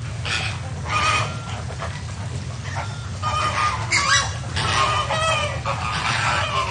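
A flock of flamingos calling: many short, overlapping honking calls, with no let-up, over a steady low background noise.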